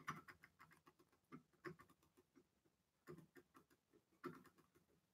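Faint computer keyboard typing: short runs of light clicks with pauses between them.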